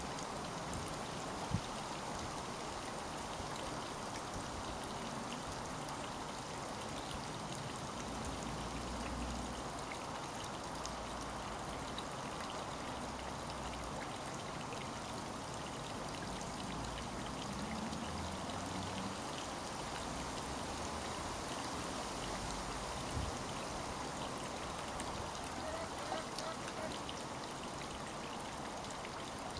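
Water trickling steadily into a garden pond, with a few faint short low rumbles.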